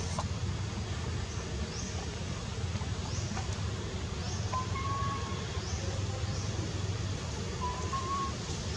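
Steady low outdoor background rumble, with faint short high chirps about every second and a half and two brief whistled tones, one in the middle and one near the end.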